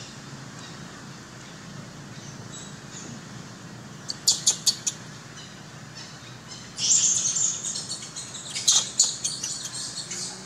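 High-pitched animal chirps and squeaks in two spells: a quick run of about five short calls about four seconds in, then a denser, louder spell from about seven seconds to near the end.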